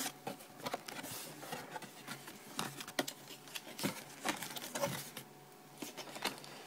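A box being opened and its packaging handled: scattered sharp clicks, taps and short rustles of cardboard and plastic at an irregular pace, with a quieter moment near the end.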